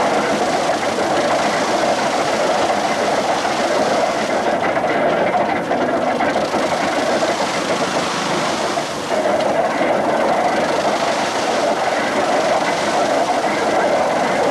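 Horse-driven threshing machine running, its drum rattling and clattering steadily as sheaves are fed in and threshed, with a slight dip in the sound about four to six seconds in.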